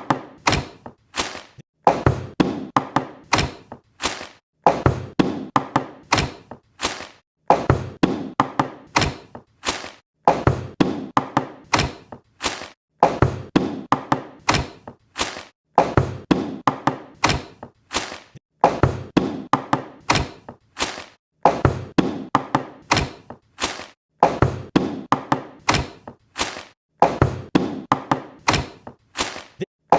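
Rapid knocking: clusters of several quick, sharp knocks separated by brief silences, repeating over and over.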